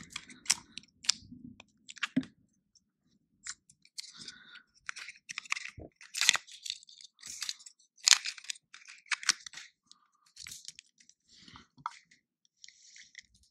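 Irregular small clicks, taps and scrapes of a Daiwa Steez AII baitcasting reel being handled: an SV Boost spool fitted into the frame and the side plate put back on.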